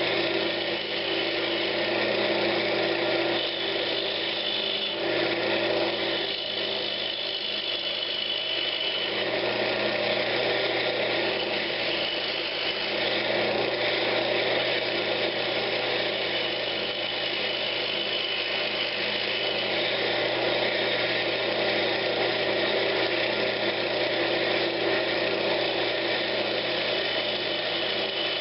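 Wood lathe running with a steady motor hum while a turning tool cuts a spinning pine knob blank, adding a continuous scraping hiss that rises and falls with the cut.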